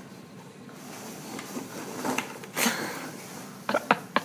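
Foam packing peanuts rustling and squeaking as a puppy burrows through them in a cardboard box, with a few sharp clicks or knocks near the end.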